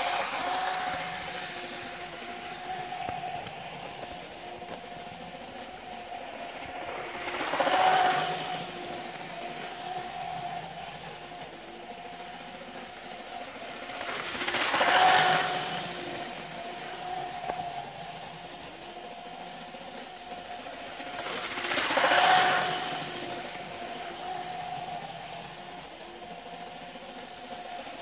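Hornby OO gauge Pacer railbus model running on its electric motor: a steady motor whine with wheels rattling over the track joints. It swells loudly about every seven seconds as the train comes round the oval past the microphone, four times in all.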